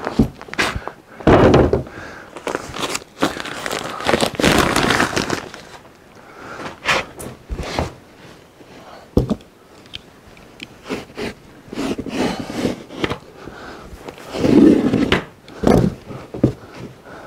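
Crinkling and rustling of paper-wrapped packs of fiberglass insulation being handled, with soft knocks and scrapes as a pink fiberglass batt is laid and pressed into a wooden roof cavity. The noise comes in irregular bursts, loudest in the first few seconds and again about two-thirds of the way through.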